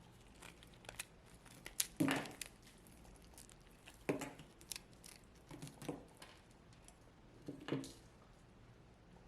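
A brittle, chalky dry block crunching and crumbling as it is crushed, in about five separate bursts a second or two apart. The crunching stops before the end.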